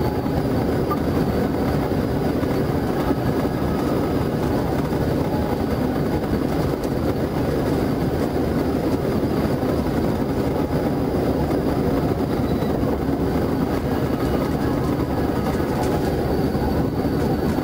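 Steady road and wind noise of a patrol car travelling at highway speed, heard from inside the cabin.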